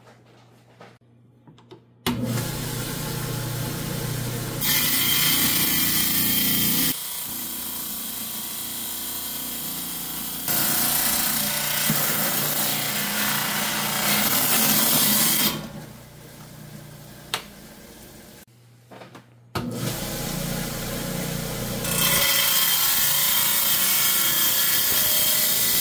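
Hi-Tech Diamond 10-inch wet lapidary saw starting up about two seconds in and running with a steady hum. Its diamond blade grinds through a chalcedony-and-jasper rock in several loud stretches, easing off between them. The saw stops briefly about 18 seconds in and starts again.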